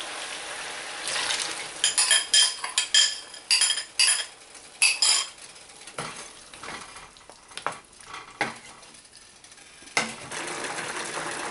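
Sauce scraped from a ceramic bowl into a hot pan of chicken, which sizzles; a fork clinks and scrapes against the bowl in a quick run of ringing clinks, then a wooden spoon stirs and knocks in the pan.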